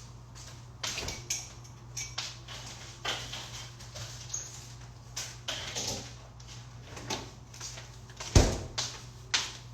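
Kitchen handling noises: scattered short knocks and clicks, with one loud thump about eight seconds in, over a steady low hum.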